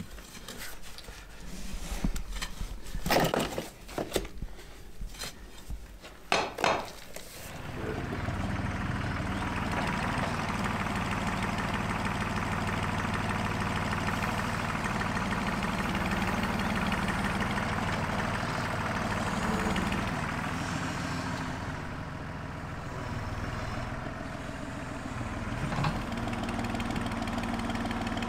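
A few loud knocks and clicks, then a small lawn mower engine starts about seven seconds in and runs steadily.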